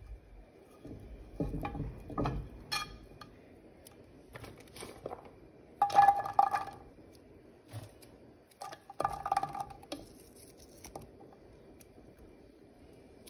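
Handfuls of diced onion dropped into a skillet of melted butter, clattering onto the pan in two louder bursts about halfway through and again a few seconds later. Light clinks and knocks of the pan come before them.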